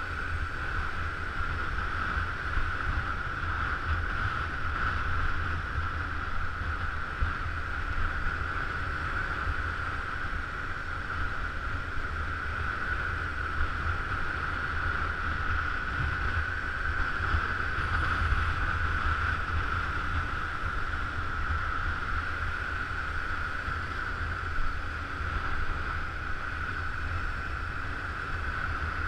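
Wind rushing over the microphone while riding a motor scooter, steady throughout, with a low rumble underneath and a steady hum higher up.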